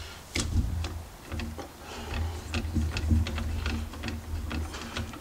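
Lathe cross-slide being wound back by hand after it was run off the end of its feed-screw thread: a run of irregular metal clicks and ticks over a low rumble as the screw is worked back into its nut.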